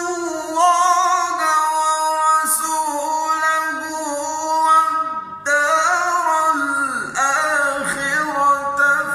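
A male reciter chants the Quran in melodic mujawwad style, holding long drawn-out notes with ornamented pitch turns and glides. There is a brief break for breath about five seconds in.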